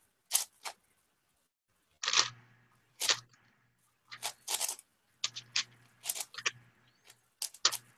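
A 5x5 speed cube's plastic layers being turned fast by hand during edge pairing: irregular clicks and clacks in short bursts, with brief pauses between them.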